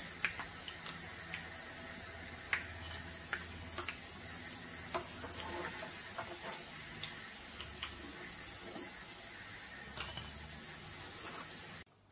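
Semolina balls deep-frying in hot oil in a non-stick frying pan: a steady sizzle with scattered light clicks and scrapes of a spatula against the pan as the balls are lifted out. The sizzle cuts off abruptly near the end.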